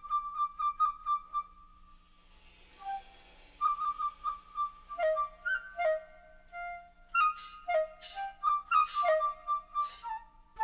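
Solo flute playing a quick melody. It opens with rapidly repeated short notes, breaks for a breathy pause, then leaps between low and high notes.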